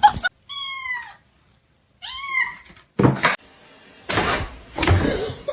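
A domestic cat meowing twice, each meow rising and then falling in pitch. A knock about three seconds in is followed by a stretch of noisy rustling.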